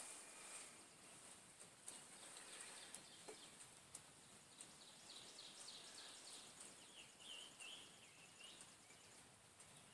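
Near silence outdoors, with faint bird chirps about halfway through.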